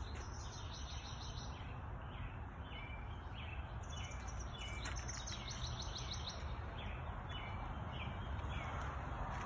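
Birds chirping in short, repeated calls over a steady low background noise.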